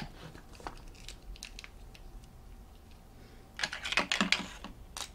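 Light plastic clicks and taps from a small toy race car and its snap-together parts being handled on a tabletop, with a busier flurry of clicking and rattling about three and a half seconds in.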